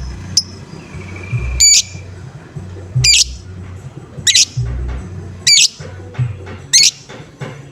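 Lovebird giving its loud, harsh 'ngoek' call five times, evenly spaced about one call every second and a quarter, over a low thumping background beat.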